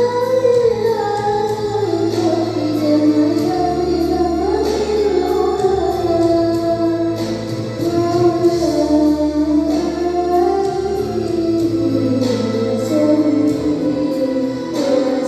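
Sholawat singing: a wavering, ornamented sung melody over held low accompaniment notes and a steady light beat.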